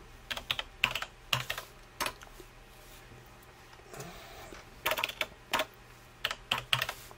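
Computer keyboard typing in short bursts of keystrokes: a run of clicks in the first two seconds, a pause of about three seconds, then more bursts from about five seconds in.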